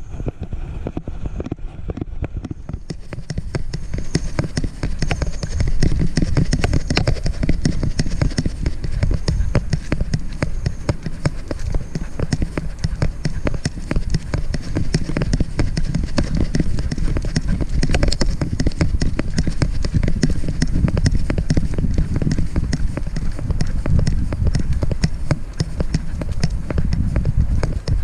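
Jostling noise from a camera strapped to a walking dog: continuous rubbing and knocking of the mount with each step, mixed with wind on the microphone, getting louder about three seconds in.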